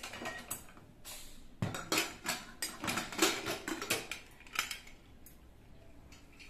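Pressure cooker's metal inner lid being worked loose and lifted out, clanking and scraping against the pot's rim in a run of separate metallic knocks between about one and a half and five seconds in.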